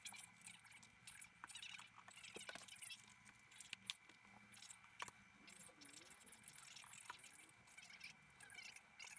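Near silence with faint rustling and scattered light clicks, typical of upholstery material being handled.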